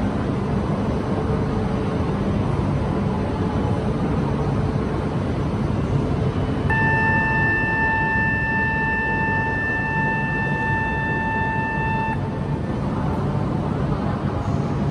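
Station platform ambience with a steady low hum beside a stationary E4 series Shinkansen. About seven seconds in, a steady single-pitched electronic signal tone sounds for about five seconds and then cuts off.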